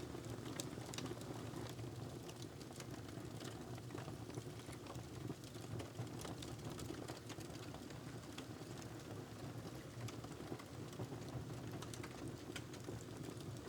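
Wood fire crackling in a fireplace: irregular sharp crackles and pops over a steady low rumble.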